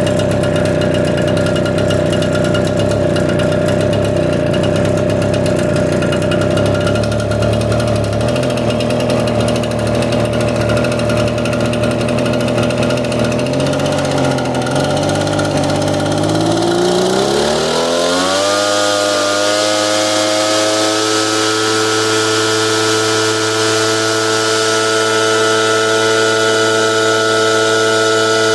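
Echo PB770H backpack blower's two-stroke engine running at a low steady speed. About two-thirds of the way through, the engine speed climbs over a couple of seconds to a high steady speed, with more rushing hiss, then dips briefly at the end.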